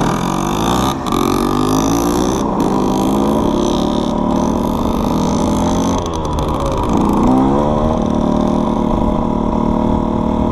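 Two-stroke KTM 125 SX dirt bike engine pulling hard and shifting up. It rises in pitch as it revs, with drops at gear changes about a second in and about six seconds in, and wind rushes over the handlebar-camera microphone. The engine is not yet warmed up.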